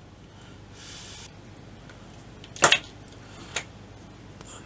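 Small handling noises from a soldering iron and a 9V battery being turned in the fingers. A faint short hiss comes about a second in, then one sharp tap near the middle and a lighter click a second later.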